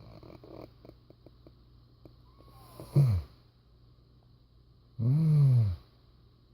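A man snoring: a faint fluttering rattle at the start, a short loud snore falling in pitch about three seconds in, then a longer, louder snore near the end that rises and falls in pitch.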